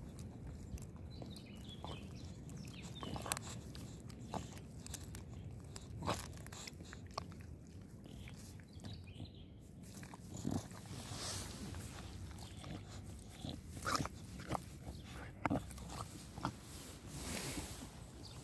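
Boxer puppy chewing and biting on a pine cone: irregular crunches and short sharp snaps.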